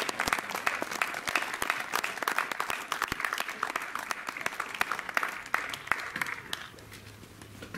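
Audience applause, many hands clapping, fading out near the end.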